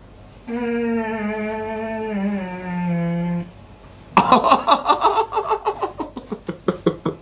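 A man's voice: a drawn-out 'ooh' of about three seconds that slides lower in pitch. After a short gap it is followed by rapid laughter.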